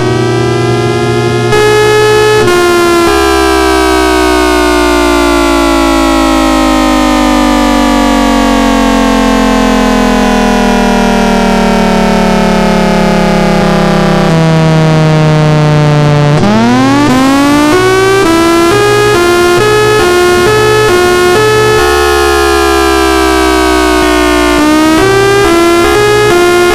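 Federal Signal Thunderbolt 1003A outdoor warning siren sounding: a steady tone that begins to wind down about three seconds in, its pitch falling slowly for some thirteen seconds. It then quickly rises back to full pitch and holds, with a brief dip and recovery near the end.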